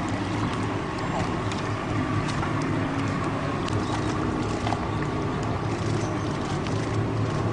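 A steady low engine hum runs under the murmur of a crowd, with scattered sharp clicks throughout.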